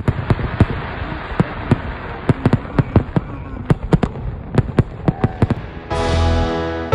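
Fireworks going off in a quick, uneven string of sharp bangs, about twenty in five and a half seconds, over a steady noisy background. About six seconds in, the bangs stop and a held music chord comes in.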